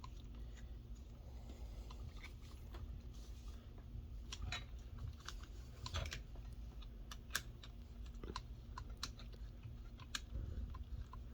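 Small irregular clicks and light taps of metal reel parts being handled, as a jigging knob is turned and fitted onto a fishing reel's handle.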